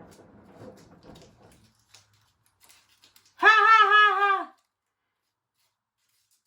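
A single loud, drawn-out vocal call at a nearly steady, fairly high pitch, lasting about a second, starting a little after three seconds in. A low rumble fades out in the first two seconds.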